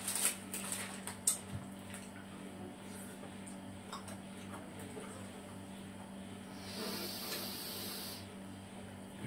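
Plastic ice lolly wrapper crinkling and tearing in a quick run of crackles during the first second or so, then a low steady hum with a brief hiss about seven seconds in.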